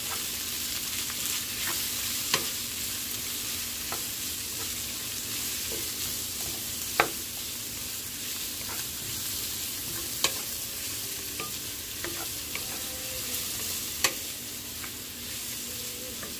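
Shredded cabbage and carrot sizzling in oil in a frying pan as they are stir-fried with a wooden spoon. The spoon clacks against the pan now and then.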